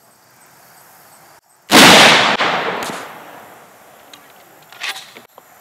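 A single .30-06 rifle shot about two seconds in, a sharp crack whose report echoes and dies away over a second or so.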